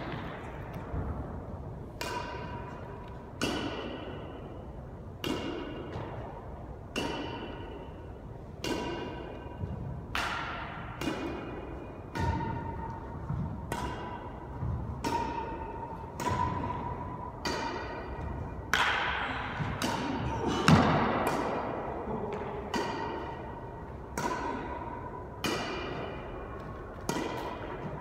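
Badminton rally: racquets striking a shuttlecock back and forth, about one hit every second and a half. Each hit rings briefly and echoes off the hard walls of an enclosed racquetball court; the loudest hit comes about two-thirds of the way through.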